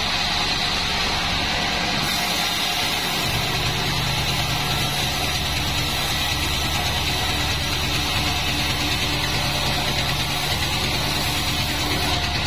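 Band saw mill running steadily: a low motor hum with a steady high tone over an even hiss. The low hum settles into a steadier, fuller note about three seconds in.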